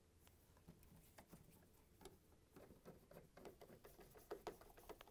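Faint scattered clicks and light metallic ticks of a quarter-inch nut driver turning screws out of a refrigerator's rear access panel, a little louder about four seconds in.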